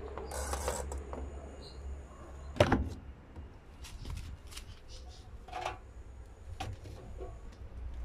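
Programme selector knob of a Whirlpool FL 5065 front-loading washing machine being turned with a quick run of clicks. About two and a half seconds in comes a single sharp clunk as the door is opened, followed by a few lighter clicks and knocks.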